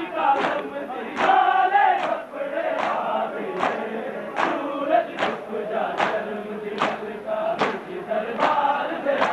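Crowd of men chanting a Punjabi noha in unison, over a steady beat of open-hand chest-beating (matam) about once every 0.8 seconds.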